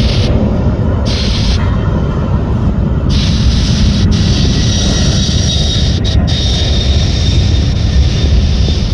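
Loud, steady jet engine noise from an SF Airlines twin-engine cargo jet on the runway, a deep rumble with hiss above it.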